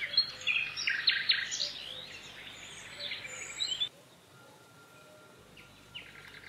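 Small birds chirping and trilling in quick calls for about four seconds. The sound then drops suddenly to faint outdoor ambience with a faint steady high tone and an occasional chirp.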